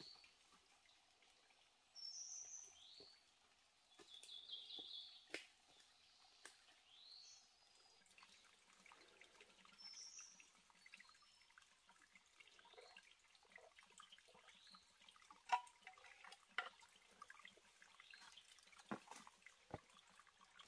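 Wild birds calling with short, high chirps and a brief trill, on and off, over a faint background. Several sharp clicks in the second half, one louder than the rest.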